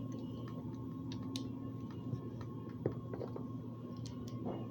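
A few faint clicks of Lego bricks being handled and pressed together, over a steady low background hum.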